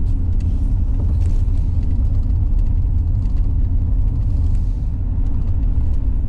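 A vehicle driving along a paved road, heard from inside: a loud, steady low rumble of engine and road noise.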